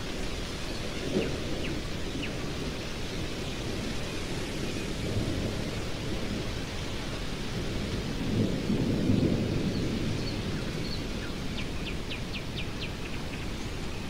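Stormy wind blowing steadily, with low rumbles of distant thunder swelling about a second in, again around five seconds, and most strongly around eight to ten seconds in. A blackbird gives a few short, sharp calls near the start and a quick run of them near the end.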